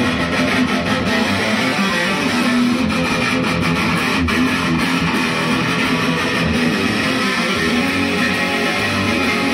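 Electric guitar music, strummed, playing steadily as an intro theme.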